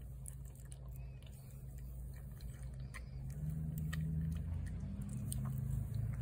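A cat chewing wet seafood cat food: irregular small wet clicks and smacks. Under them runs a low steady hum that grows louder about halfway through.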